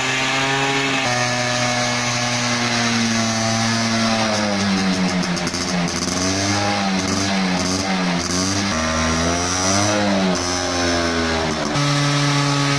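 Minsk motorcycle's two-stroke single-cylinder engine revved hard while standing, held at high revs with its pitch sagging and climbing several times in the middle. The note jumps abruptly twice, near the start and near the end.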